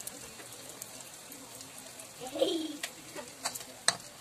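Dough frying in hot oil in a wok, with a steady sizzle. A short pitched call, like a voice or a bird, is the loudest sound about two seconds in. Near the end, a metal spatula clinks sharply against the wok several times as the pretzel is turned.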